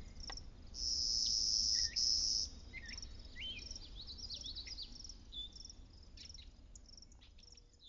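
Crickets chirping in short repeated pulses, with a louder steady insect trill about a second in that breaks once and lasts about a second and a half, and scattered short bird chirps.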